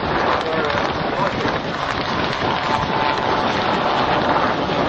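Westland Sea King helicopters flying low and close, their rotors and turbines making a steady, dense rushing noise.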